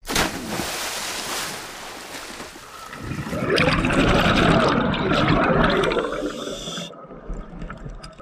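Sound effect of water bubbling and rushing, as bubbles form an underwater logo. A burst comes right at the start and eases off. A louder swirl of bubbles rises about three and a half seconds in and fades away.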